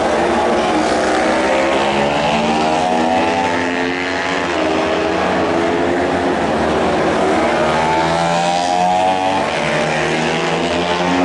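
Several racing motorcycle engines running hard on the circuit, their overlapping notes rising and falling as the bikes pass.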